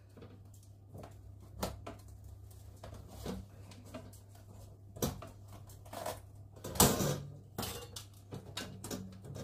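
Scattered knocks and clatters of a bread baking tin and wire cooling rack being handled on a kitchen counter while a stuck loaf is worked free, the loudest knock about seven seconds in.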